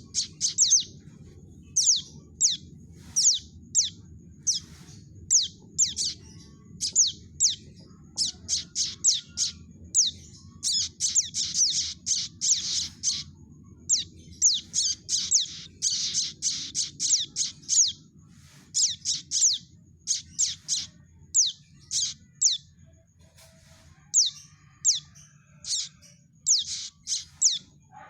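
Young prenjak (prinia) calling: sharp, high chirps that slide downward, repeated in quick runs of several with short gaps. It is a lure call used to draw in prenjak. A faint low hum runs underneath.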